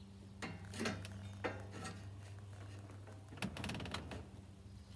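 Aftermarket front bumper being slid onto the front of a lawn tractor's frame: short scraping and clinking handling noises about half a second in, again around a second and a half, and once more around three and a half seconds, over a low steady hum.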